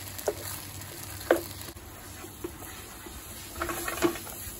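Food sizzling in a frying pan as it is stirred, with a few sharp scrapes and taps of a spatula through ketchup-coated rice and vegetables, the loudest about a second in. Then a quick run of clicks near the end as chopsticks scramble beaten egg against the pan.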